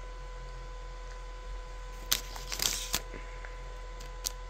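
Puffed-rice chocolate bar cracking: a short cluster of sharp cracks and crackles about two seconds in, and a single click near the end, over a steady electrical hum.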